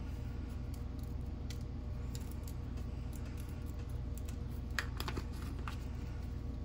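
Light clicks and ticks of plastic spice shakers being handled and shaken over raw chicken, with a few sharper clicks about five seconds in, over a steady low hum.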